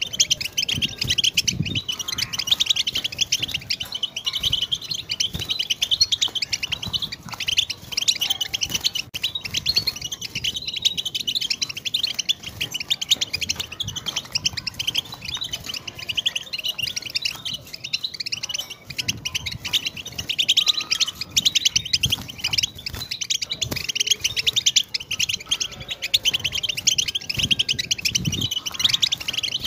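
European goldfinch singing without a break: a fast, chattering run of high twittering notes.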